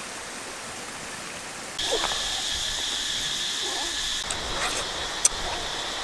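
Outdoor evening ambience: a steady high-pitched chirring insect chorus starts abruptly about two seconds in, with a few short rising and falling calls and clicks over it.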